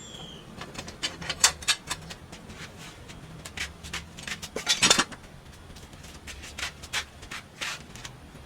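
Irregular metallic clinks and knocks of tools and metal parts being handled, the loudest clatter just before the middle.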